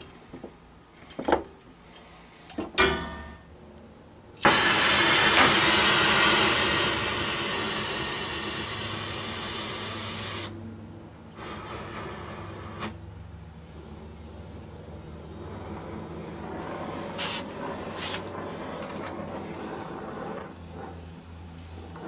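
Portable oxy-fuel torch. After a few small handling clicks, a sudden loud gas hiss starts about four seconds in. About halfway through it settles to a quieter, steady flame hiss as the torch heats a copper refrigerant line to braze on a fill valve.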